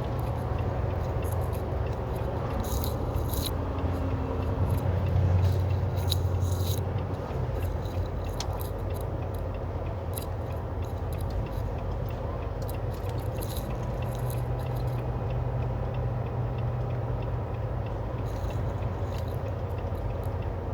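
Semi truck's diesel engine running steadily, heard from inside the cab with road noise, briefly louder a few seconds in, and scattered light clicks and rattles throughout.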